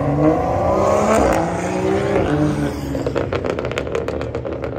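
Car engine revving hard, its pitch rising and falling, then breaking into a rapid, even stutter of about eight pops a second for the last couple of seconds.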